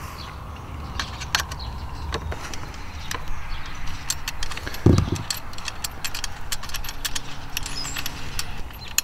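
Small irregular metallic clicks and ticks of stainless-steel nuts and washers on T-bolts being worked off by hand on a metal bracket, with one dull thump about five seconds in.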